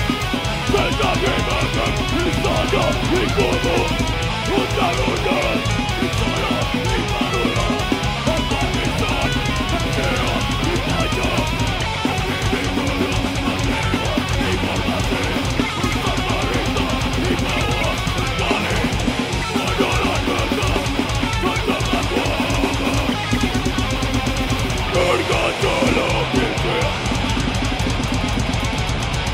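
Death metal band playing live and loud: heavily distorted electric guitars over fast drumming on a Tama drum kit, dense and unbroken.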